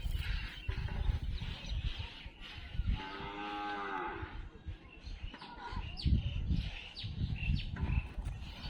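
A cow moos once, a single call of about a second, heard over a low rumble of wind or handling noise.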